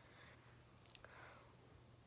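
Near silence: faint steady room hum, with a couple of soft clicks a little under a second in.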